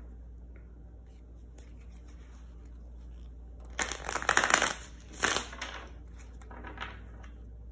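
Tarot deck being shuffled by hand: a dense run of quick card flicks about four seconds in, followed by a shorter second burst.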